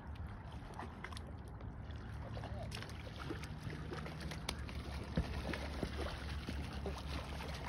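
Faint splashing of a hooked rainbow trout thrashing at the water's surface, over a low steady rumble; the splashes pick up in the second half.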